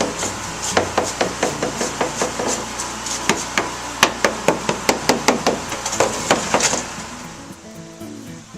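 A quick run of hammer blows on wood, about three a second, which stops about seven seconds in. Background music comes in near the end.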